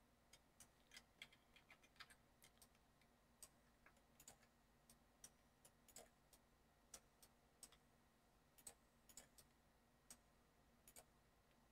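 Faint, irregularly spaced clicking of a computer mouse and keyboard, a few clicks a second, over a low steady hum.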